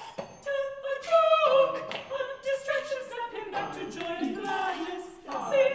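Soprano, mezzo-soprano and contralto singing together unaccompanied in close harmony, with held notes and short phrases.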